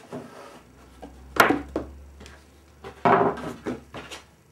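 Knocks and clatter of a moulded fibreglass part and hand tools being handled and set down on a rubber-covered workbench: a sharp knock about a second and a half in, a lighter one just after, and a longer burst of clatter about three seconds in, over a faint low hum.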